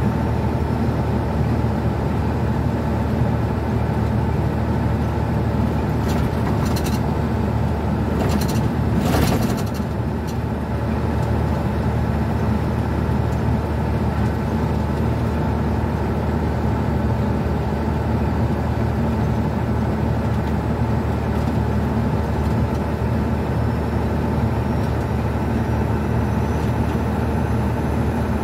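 Old International semi truck's diesel engine and road noise droning steadily, heard from inside the cab while driving. A couple of short, sharp sounds come about six and nine seconds in, followed by a brief dip in the engine sound.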